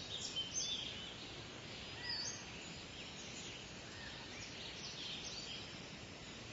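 Several birds chirping with short, high calls and quick little whistles, scattered throughout, over a steady background hiss.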